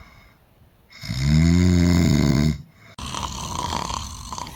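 A man snoring. About a second in comes one long, loud, pitched snore lasting about a second and a half. Near the end the sound switches abruptly to a quieter, steady background noise.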